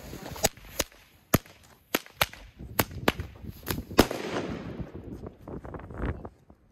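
Tric Trac jumping frog firecracker going off: a string of about nine sharp bangs over four seconds at uneven spacing, the cracker hopping with each one. The loudest bangs come about a second and a half in and at the last bang, about four seconds in.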